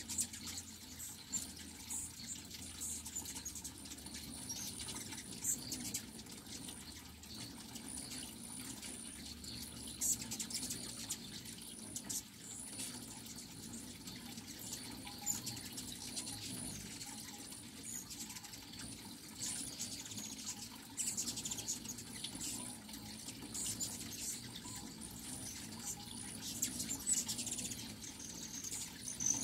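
A crowd of hummingbirds at nectar feeders: the steady whir of their wings with frequent short, high-pitched chips and squeaks.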